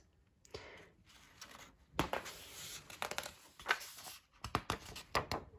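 Faint rustling of paper and a hand sliding and pressing on the pages of a picture book to flatten it open, starting about two seconds in, with several sharp clicks near the end.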